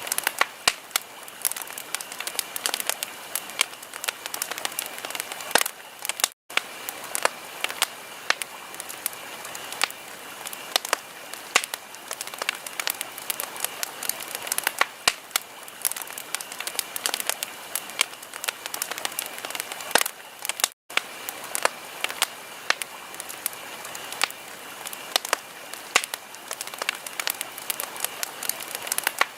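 Wood fire crackling in a fireplace: a steady hiss with a dense stream of irregular sharp pops and snaps. The sound cuts out for an instant twice.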